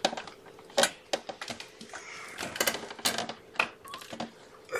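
About a dozen light, irregular clicks and taps, spaced unevenly.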